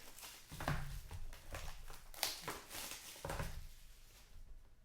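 Baseball-card packaging and cards being handled and opened: a faint run of crinkling, rustling and small clicks and taps at uneven intervals.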